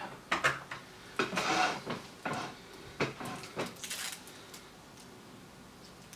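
Small clicks, clinks and rustles of fingers handling a small electronic component, a quick run of them that stops after about four and a half seconds.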